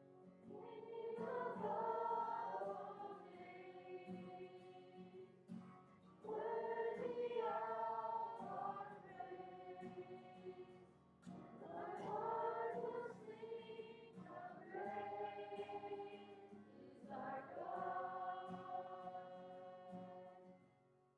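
Group of voices singing a worship song in four phrases, each swelling in and then fading, with a brief gap between them.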